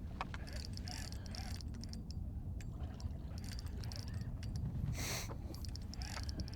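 Fishing reel clicking in short runs of quick ticks as a hooked jack crevalle is fought from a skiff, over a steady low rumble of wind and water, with a brief splash-like rush about five seconds in.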